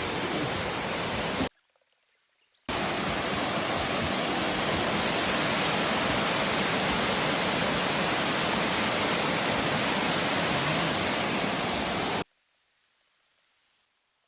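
Steady rushing of a waterfall. It cuts off abruptly about a second and a half in, comes back about a second later, and cuts off again near the end, leaving near silence.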